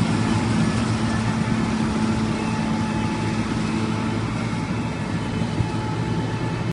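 Laverda combine harvester running steadily: a dense mechanical noise over a low engine drone, easing slightly quieter over the seconds and cutting off abruptly at the end.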